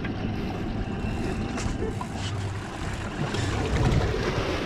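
Suzuki 300 four-stroke V6 outboard idling with a steady low hum, with water sloshing at the stern and wind on the microphone.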